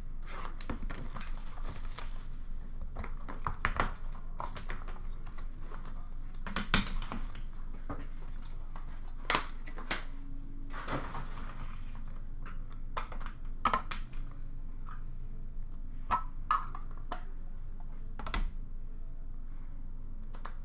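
Hockey card box and its packaging being opened and handled: scattered taps, clicks and short rustles of cardboard and cards.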